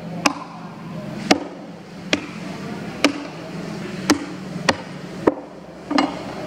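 Heavy knife chopping through giant trevally on a thick wooden block: eight sharp, irregular chops about a second apart.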